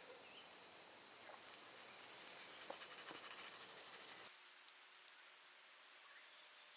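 Faint scratchy rubbing of steel wool scrubbed over a steel axe head to remove rust spots, a fast, even scratching hiss that is strongest for about three seconds and stops abruptly just past the middle.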